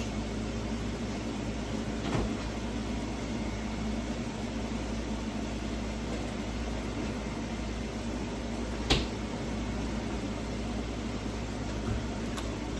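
Steady machine hum with a low hiss. Two short clicks break through it: a faint one about two seconds in and a louder one about nine seconds in.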